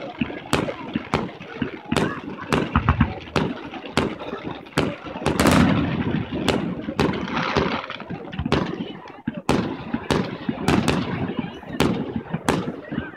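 Aerial fireworks shells bursting in quick irregular succession, about one or two sharp booms a second, with crackling between the reports.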